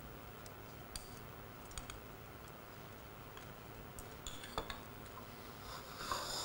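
Faint, scattered light clicks of chopsticks against china rice bowls while eating, with a small run of clicks about four seconds in and more near the end.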